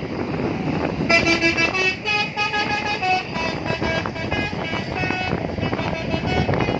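Bus telolet horn, a basuri multi-tone musical horn, playing a quick joget dance tune in stepped notes that starts about a second in, over a steady rumble of noise.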